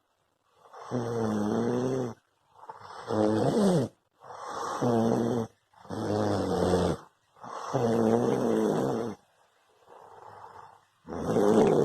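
Loud, harsh snoring in a quick, regular series of about seven pitched, rasping strokes, one every second and a half or so, with short silences between. One stroke near the end is much weaker.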